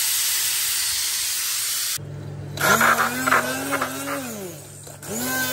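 Pressure cooker whistling: steam venting from the weighted valve as a loud, steady hiss that cuts off about two seconds in. After it comes a steady low hum with tones that rise and fall.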